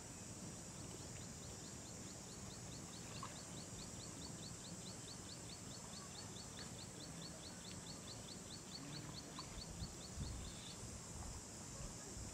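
Outdoor rural ambience: a steady high insect hiss, with a rapid chirping call repeated about five times a second that stops shortly before the end. A few low thumps sound near the end.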